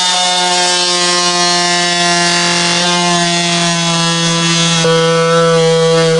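Cordless power tool running steadily and cutting into the plastic case of a 12 V lithium (LiFePO4) battery, a constant motor whine over a rasping hiss. Its pitch dips slightly about five seconds in as it takes load.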